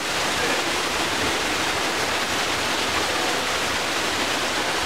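Steady rush of a waterfall's falling water.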